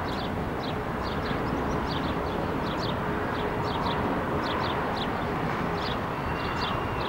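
Small birds chirping over and over, about two short falling chirps a second, above a steady rumble of wind and distant traffic. A faint thin high tone comes in near the end.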